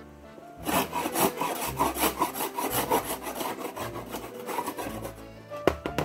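Rapid, repeated scraping strokes on wood, starting about half a second in and stopping shortly before the end, with a couple of sharp knocks near the end. Background music with steady held notes plays underneath.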